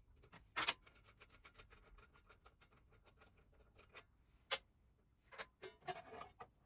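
Clicks and small metal knocks from working on a miter saw's blade assembly during a blade change, including a run of quick, even ticks and a burst of handling knocks near the end.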